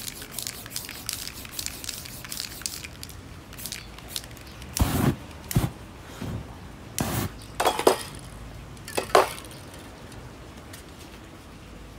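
Light scratchy rustling of paper stencil pieces being peeled and lifted off a spray-painted canvas, then about five short, loud hissing bursts over a few seconds.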